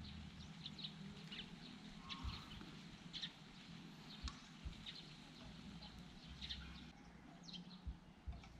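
Faint outdoor ambience: scattered short high chirps, with a few soft knocks and light rustles as sticks are worked into dry grassy ground.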